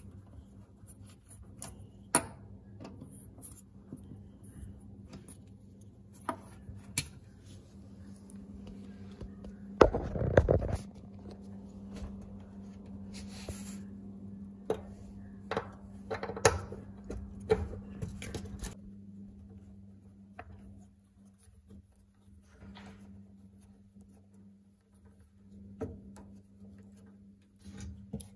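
Scattered clicks, knocks and scrapes of metal and plastic dryer parts being handled as the dryer's blower housing is taken apart, with a louder clatter lasting about a second, ten seconds in. A steady low hum runs underneath.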